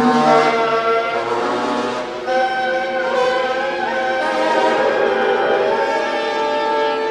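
Contemporary orchestral music with brass prominent, holding sustained chords. A new chord enters about two seconds in.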